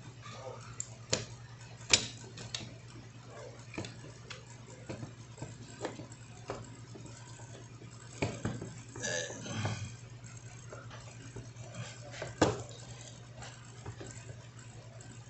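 Hand tools clinking and knocking against the metal parts of an opened electric polisher while its 608-2RS ball bearing is worked loose. Scattered sharp clicks, the loudest about two seconds in and near the end, over a steady low hum.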